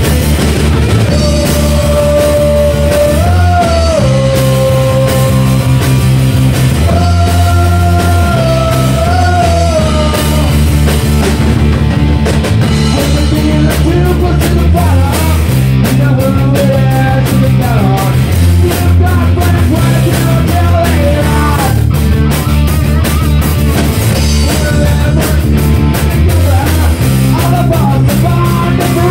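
A rock band playing loud live: electric guitars over a drum kit, with long held melody notes on top.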